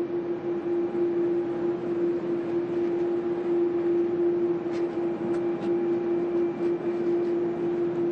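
Jet airliner engines running steadily: a constant hum over a broad engine noise, with a few faint, brief high chirps about five seconds in.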